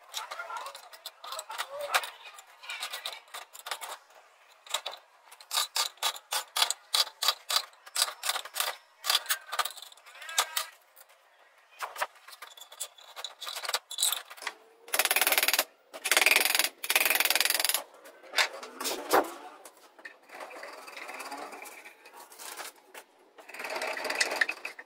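Wood chisel snapping out the thin leaves of timber left between saw kerfs in a beam: a quick, irregular run of sharp cracks and clicks as the slivers break off. Past the middle come a few loud hissing bursts, and near the end the chisel scrapes along the bottom of the cut.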